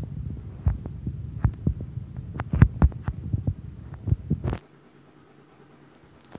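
Wooden spoon stirring chicken curry in a large aluminium pot: irregular knocks and scrapes against the pot over a low rumble. Everything stops abruptly about four and a half seconds in, leaving only faint room tone.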